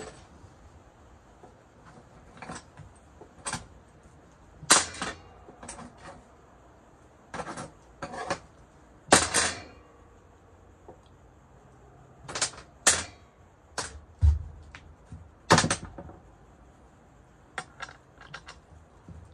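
Metal parts of a large electric motor being worked apart by hand: a dozen or so sharp clinks and knocks at irregular intervals, some with a short metallic ring, and one duller, heavier knock partway through.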